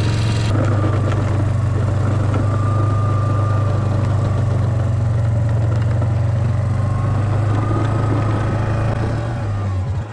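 2007 Yamaha Kodiak ATV's single-cylinder four-stroke engine running steadily under load while its plow pushes deep snow, with a faint high whine above it; the engine eases off near the end.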